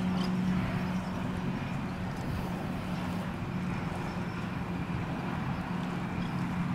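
Steady low engine hum at a constant pitch, over a noisy wash.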